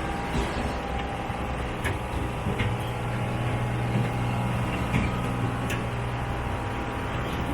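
Steady low mechanical hum, with scattered short clicks and knocks every second or two.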